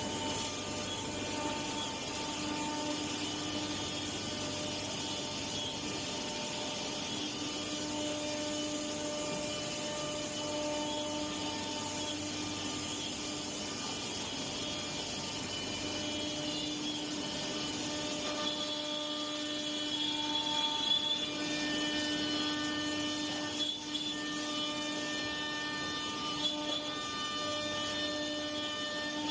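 Woodworking CNC router running: a steady machine hum and whine made of several steady tones that swell and fade every few seconds, over a constant noise.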